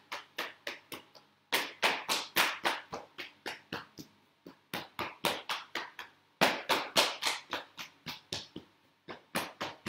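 Hands tapping rapidly on the legs in Do-In self-massage percussion, working down the outside of the legs and back up the inside. The strikes come about five a second in runs of two or three seconds, each run starting loud and getting softer, with short pauses between runs.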